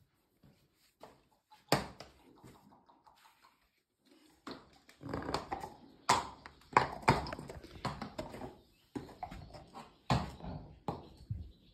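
A horse shifting about in its stall: scattered knocks and rustling, with one sharp click a little under two seconds in, growing busier and more continuous from about four seconds on.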